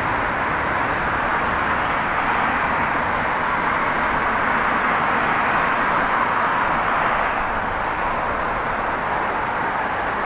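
Airbus A330-223's twin Pratt & Whitney PW4000 turbofans at climb thrust: a steady, distant jet roar as the airliner climbs away after takeoff, swelling slightly midway.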